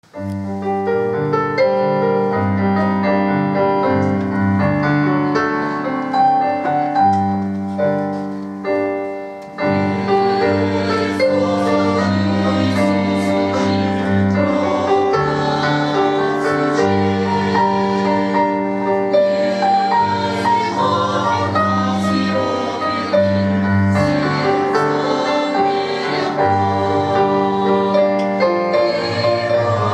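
Church choir hymn with keyboard accompaniment, in slow sustained chords. The music fades about eight seconds in and comes back fuller a second and a half later.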